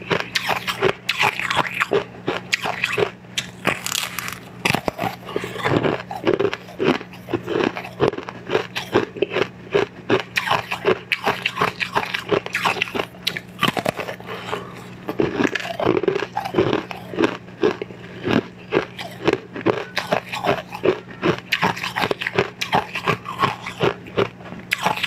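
Close-up crunching and chewing as bites are taken from a brittle, translucent purple molded candy figure: dense, irregular cracking crunches that carry on throughout.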